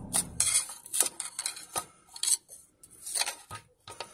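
Steel pry bar levering at the pressed-steel timing cover of a Morris Minor engine: an irregular run of sharp metallic clinks and scrapes as the cover is worked loose to get at the front oil seal.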